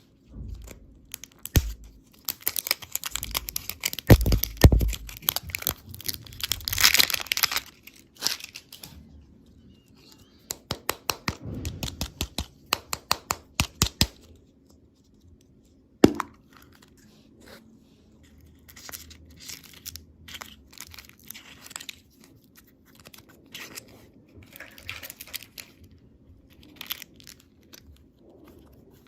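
Plastic candy packaging being torn open and crinkled by hand, with a run of quick clicks partway through and one sharp snap about halfway, then softer rustling.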